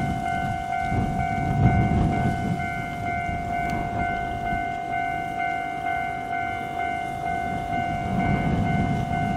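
Japanese level crossing alarm ringing, an electronic bell repeating about twice a second. Under it is the low rumble of a train on the track, strongest at the start and again near the end.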